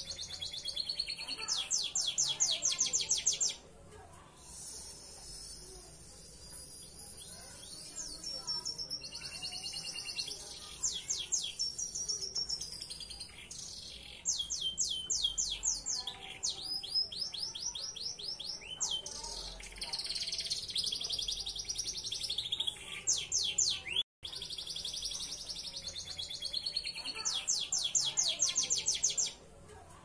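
Belgian Bossu canary singing: runs of fast, high trills a second or two long alternate with quieter warbling passages.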